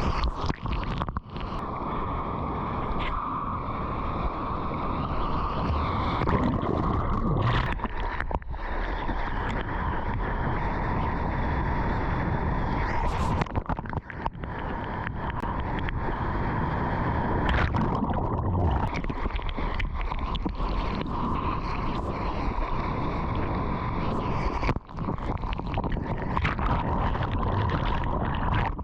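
Ocean surf and rushing water with wind buffeting the microphone, a continuous loud wash that drops out briefly a few times.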